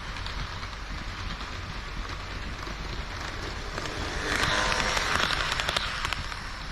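HO scale model train of KiHa 40 and KiHa 58 diesel railcars running on the layout track: a steady rattle of wheels on the rails with scattered clicks at the rail joints. It grows louder, with denser clicking, from about four to six seconds in.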